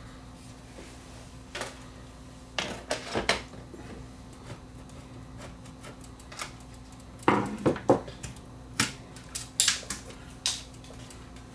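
Scattered clicks, knocks and light clatter of plastic and metal parts being handled as a CD player's front panel is taken apart: a few knocks about three seconds in, a louder cluster around the middle, then lighter clicks. A faint steady hum sits underneath.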